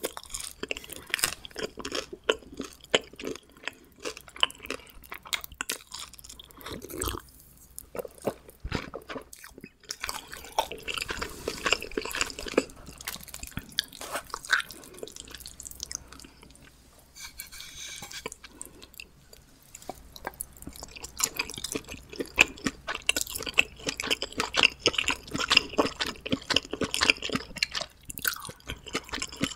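Close-miked eating sounds: a person biting and chewing homemade pizza, with wet, sticky mouth sounds and some crunching of the thin crust, and a couple of short pauses.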